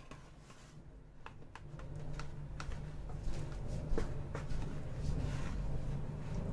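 Thin aluminium foil tray crinkling and clicking as a raw salmon fillet is set into it and pressed down by hand, in irregular sharp crackles over a low steady hum.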